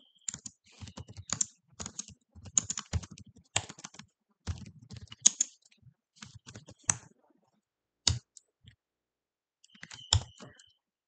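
Typing on a computer keyboard: quick, irregular runs of key clicks that thin out to a few scattered taps in the second half, then a short last burst near the end.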